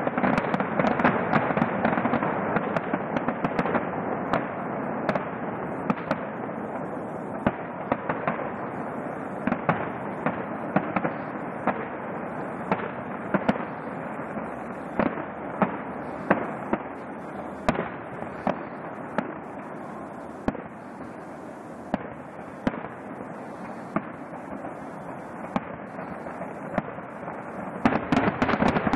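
Fireworks display: a continuous crackle packed with sharp bangs of bursting shells. It is heaviest at the start, thins out through the middle and builds again near the end.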